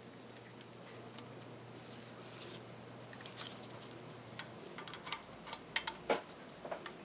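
Scattered light metallic clicks and ticks as small steel parts of an Atlas horizontal milling machine are handled and fitted during reassembly, more of them near the end. A faint steady hum underneath stops a little past halfway.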